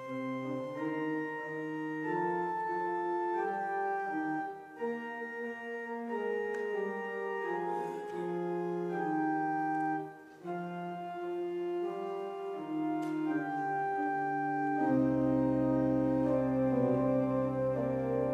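Church organ playing a slow piece of held chords that change every second or so, with a brief break about ten seconds in. About fifteen seconds in, a deep pedal bass note comes in and the sound grows fuller.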